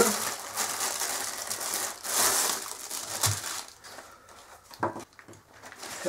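Thin clear plastic packaging crinkling and tearing as it is pulled open by hand, loudest about two seconds in. It then drops to soft rustles with a couple of light knocks.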